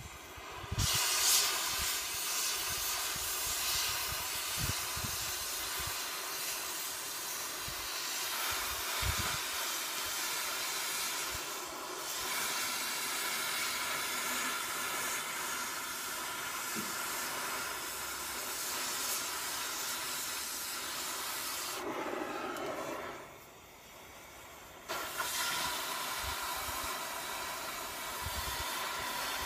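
Hand-held cutting torch hissing steadily as it cuts through steel plate. The hiss starts about a second in, stops for about two seconds a little after the 23-second mark, and then starts again.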